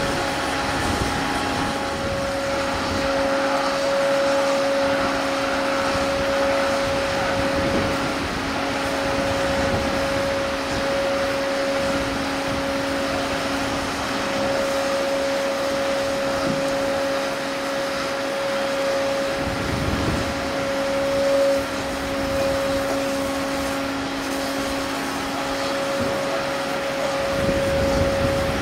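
Tracked launch-and-recovery tractor of a Shannon-class lifeboat running steadily, with a constant two-note whine over a hiss that fits a hose spraying water onto the carriage tracks.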